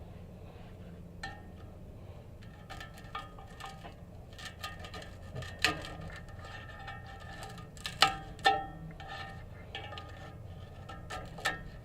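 Irregular metallic clinks, taps and scraping on an exhaust pipe as old, brittle patch material is chipped off, some strikes ringing briefly. The sharpest knocks come a little past halfway and twice more soon after.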